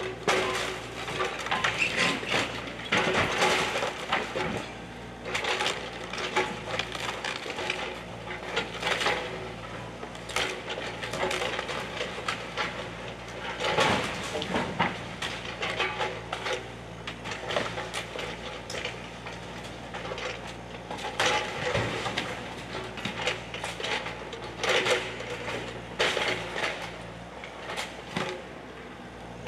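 Small Bobcat excavator tearing apart a wood-frame house: timber cracking and splintering and debris crashing down again and again, over the steady hum of the excavator's engine.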